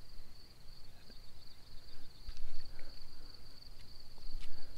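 Crickets trilling steadily in one high, even tone, over a low rumbling background with a few faint knocks.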